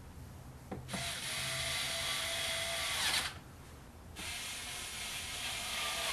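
Ryobi electric screwdriver running in two bursts of about two seconds each, with a short pause between, turning a screw in the plastic air filter cover of a Baja SC50 scooter.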